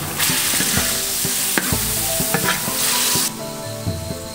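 Food sizzling and frying in a pan on a stove, with a metal spatula clicking and scraping as it stirs. The sizzle is loud, then drops back about three seconds in.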